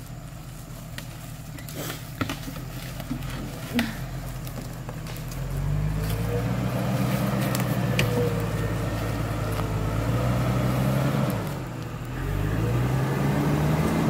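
Off-road 4x4 engine revving up about five seconds in and holding under load, easing off briefly, then revving again near the end.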